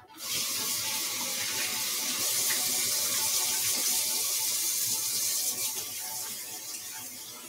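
Kitchen sink tap running while hands are washed of cooking oil: a steady hiss of water that comes on right at the start and drops lower about five and a half seconds in.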